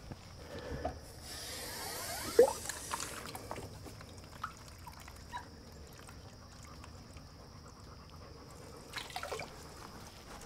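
Water trickling briefly into a plastic chick-feeder trough from about one to three seconds in, faint, with a couple of short puppy whimpers.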